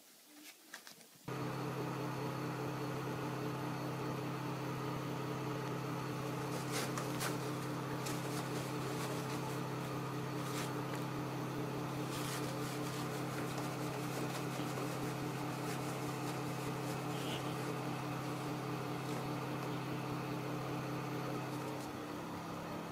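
A steady low mechanical hum over an even hiss, starting abruptly a little over a second in, with a few faint clicks over it.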